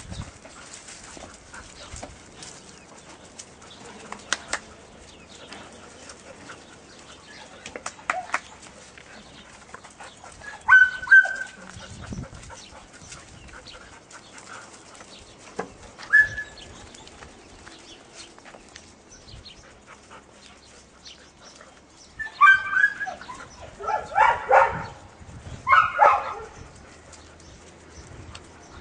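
Dogs barking and yelping at play: a few single barks spread through the first half, then a quicker run of barks about three quarters of the way through.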